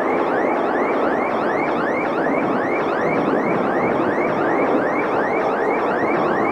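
A car alarm whooping: a repeated rising tone, between two and three sweeps a second, over a loud, steady roar of Concorde's Olympus jet engines climbing away.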